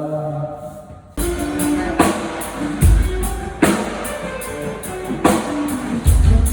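Rock band playing live through a PA during a sound check. The full band comes in about a second in, with drum kit hits and kick drum over bass and guitar.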